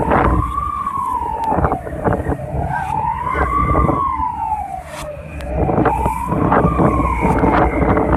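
Wailing alarm siren, its pitch rising and falling slowly about once every three seconds, sounding for a man overboard. Under it, wind buffeting and sea noise with scattered knocks.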